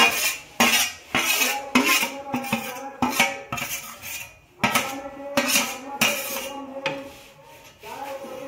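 Steel ladle scraping and knocking against a steel plate as grated coconut is cleared off it into a pot. There are a dozen or so separate scrapes and clinks, and the plate rings briefly after several of them.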